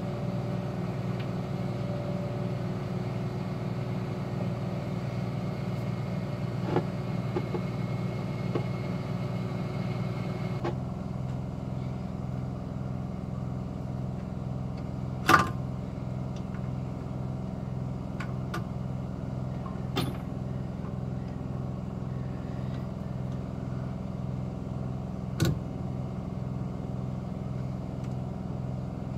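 A steady low mechanical drone with an even pulsing beat, which changes about ten seconds in. Over it come a few sharp metal clinks and knocks from parts being handled on a stripped-down engine block; the loudest knock comes about halfway through.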